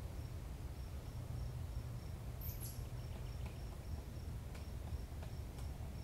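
Outdoor ambience: a faint high insect ticking about three times a second over a steady low rumble. A single short, high, falling chirp from a small bird comes about halfway through, and a few faint clicks come near the end.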